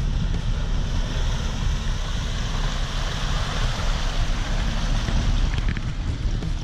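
Jeep Wrangler Rubicon driving through a shallow water crossing toward and past the microphone: engine running under a steady rumble while the tyres splash and churn through the water, the splashing swelling in the middle.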